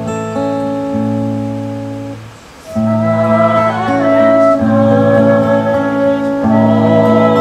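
Acoustic guitar playing sustained chords that fade out about two seconds in; about half a second later a woman's voice starts singing a slow melody over the guitar, amplified through PA speakers.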